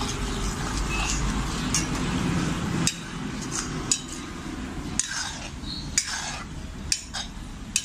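A slotted metal ladle stirring thick gravy in a metal kadai, scraping through the sauce and clinking against the pan about once a second. A low steady rumble underneath stops about three seconds in.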